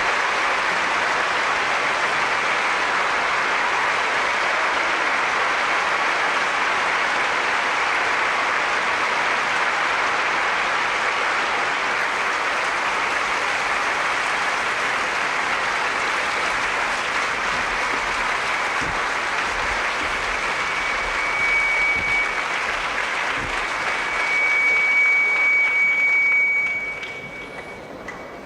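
Long, steady applause from a large crowd, a dense patter of many hands clapping, with a thin high whistle-like tone over it in the last seconds before it dies down near the end.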